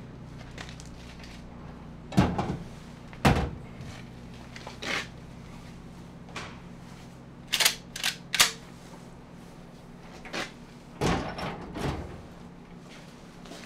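Sharp knocks and clunks from a metal gun safe and a shotgun as the gun is taken out and handled. About nine knocks come in three loose clusters over a steady low hum.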